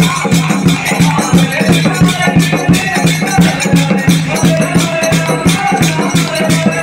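Kirtan music: brass hand cymbals (kartals) struck in a fast even rhythm, about four strikes a second, over a drum beat, with voices chanting.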